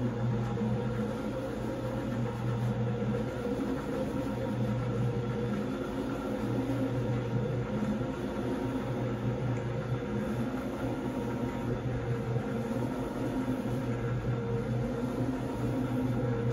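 Single-disc rotary floor machine scrubbing a wet, foamy shag rug: a steady electric motor hum with the noise of the rotating brush working through the soapy pile.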